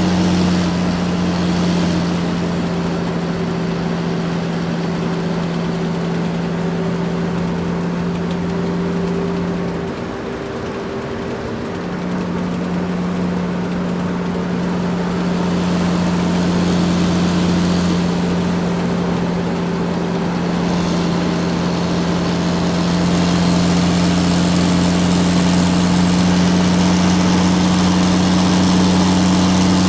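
Large truck's engine running steadily as it drives, a deep, even hum. The engine note drops away briefly about ten seconds in, then comes back and grows a little louder near the end.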